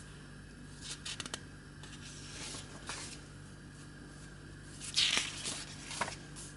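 Paper pages of a paperback book being turned by hand: a few light taps and rustles, then a louder swish of a page turning about five seconds in.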